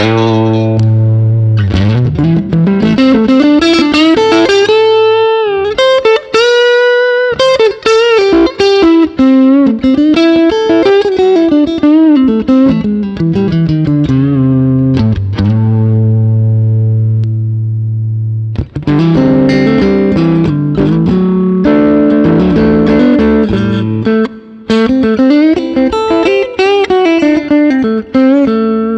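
Harley Benton Fusion II electric guitar played clean through an Axe-FX III modelling a Vox AC30 amp: melodic lead lines with string bends over ringing low notes. About two thirds through, a note is left to ring and fade before a new phrase starts.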